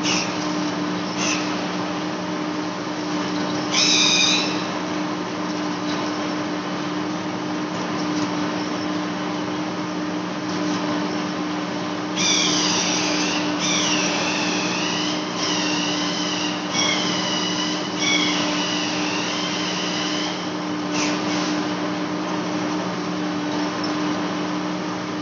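Large lathe facing a big metal flange: a steady machine hum, with the cutting tool squealing off and on in high, wavering tones. The squeals come briefly a couple of times early and then in a long run from about halfway through.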